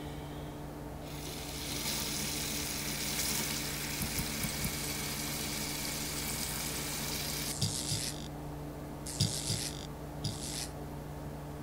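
Bathroom sink faucet running into the basin, a steady hiss that stops about seven and a half seconds in. After it come a few short, hissy bursts with soft thumps, over a steady low hum.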